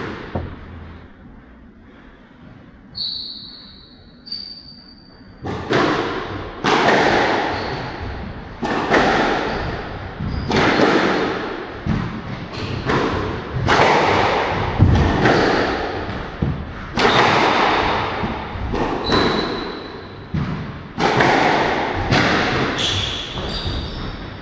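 A squash rally: the ball is struck by rackets and hits the court walls in a steady run of sharp, echoing impacts about once a second, starting about five seconds in. Before it and between shots, sports shoes give short high squeaks on the court floor.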